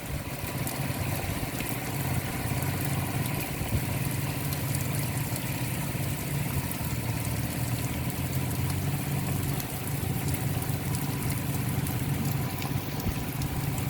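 A motor or engine running at a steady speed: an even, unchanging hum.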